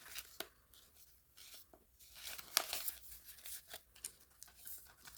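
Paper banknotes and envelopes rustling and crinkling in irregular handfuls as counted cash is handled and set aside.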